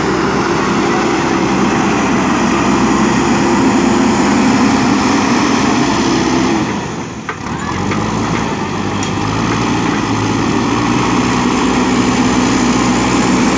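JCB 3DX backhoe loader's diesel engine running steadily. About seven seconds in the sound dips briefly, then carries on with a lower hum.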